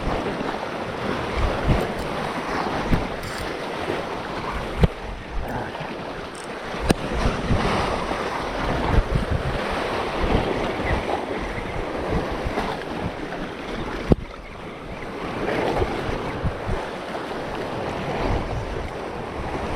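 Wind buffeting the microphone over the wash of sea waves, with a few sharp knocks.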